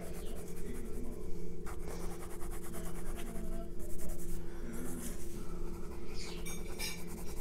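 Graphite pencil shading on paper: quick, repeated scratching strokes over a steady low hum.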